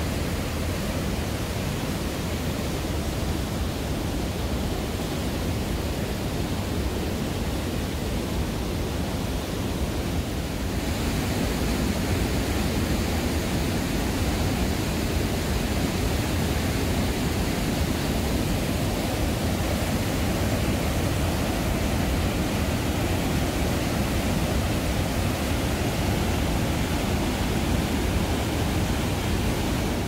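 Whitewater cascading through a narrow rock gorge: a steady, loud rush of water, a little louder from about eleven seconds in.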